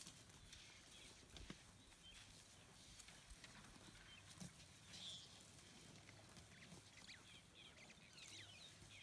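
Near silence: faint, scattered snaps and rustles of elephants feeding on fallen acacia pods and twigs, with a few faint high chirps near the end.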